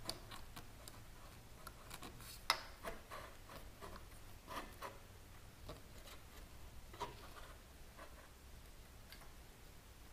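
Faint scattered clicks and light taps of a motorcycle exhaust pipe being twisted and shifted by hand into position, with a sharper click about two and a half seconds in and another about seven seconds in.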